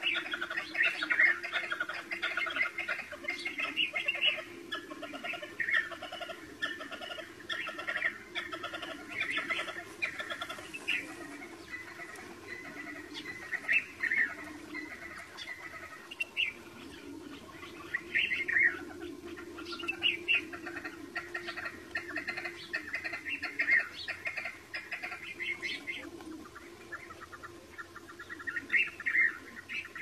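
A flock of see-see partridges calling continually: a busy chatter of short, high calls, with louder clusters every second or two.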